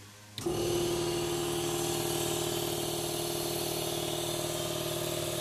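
Van-mounted Mobile Air electric air compressor switched on, starting abruptly about half a second in and then running with a steady hum.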